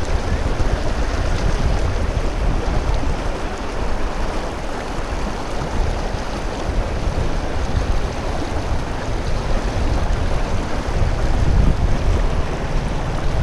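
Shallow, fast mountain river rushing over rocks and cobbles, a steady loud rush with a heavy low rumble, heard close to the water.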